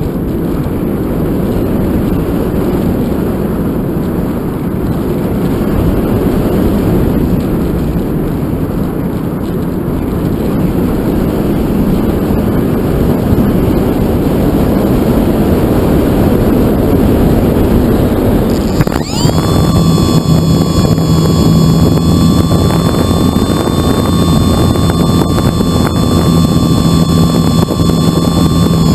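Airflow rushing past a radio-controlled model airplane in flight, a steady rushing noise with wind on the microphone. About two-thirds of the way in, the plane's motor comes on abruptly: a steady high whine over a low hum.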